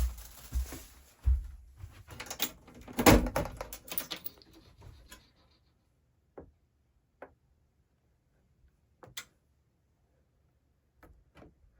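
Handling noise in a small room: a run of knocks, thumps and rustling for about five seconds, loudest about three seconds in, then a few single sharp clicks a second or two apart.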